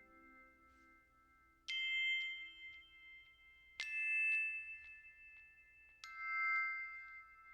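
Three struck bell-like chime notes, about two seconds apart, each ringing out and fading slowly, as in glockenspiel-style music.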